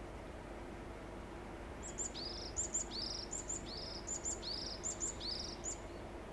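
Varied tit singing: about five quick repeats of a phrase of two thin high notes followed by a lower trilled note, starting about two seconds in.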